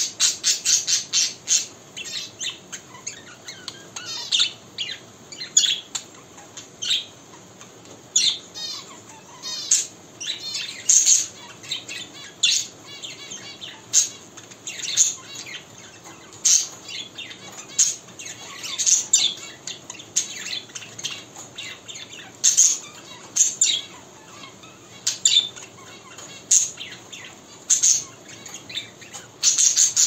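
Budgerigar chirping and warbling: a rapid run of sharp calls at first, then short squawks and chirps about every second or so, with stretches of twittering warble in between.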